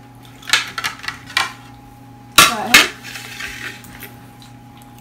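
Metal serving spoon clinking and scraping against a ceramic baking dish and a plate as macaroni and cheese is dished out. A cluster of light clinks comes first, then two loud clanks in quick succession about halfway through.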